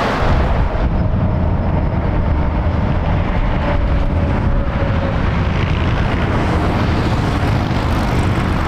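Jet engine noise from a Volaris Airbus rolling out on the runway after landing: a steady low rumble, with the higher hiss dying away in the first second.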